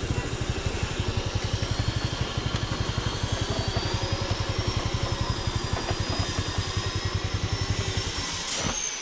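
Honda Activa 4G scooter's single-cylinder engine running with a steady, fast putter, then cutting off abruptly near the end, just after a click.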